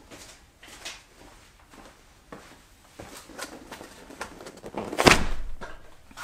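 Knocks and cardboard rustles as boxes of Manley connecting rods are carried and handled, then a heavy thud about five seconds in as the boxes are set down.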